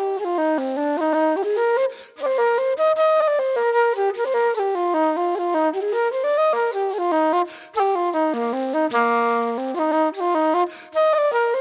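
Background instrumental music: a quick melody of many short pitched notes, broken by brief pauses a few times.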